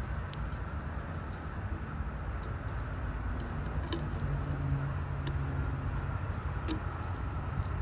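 A steady low engine rumble, with a few faint clicks.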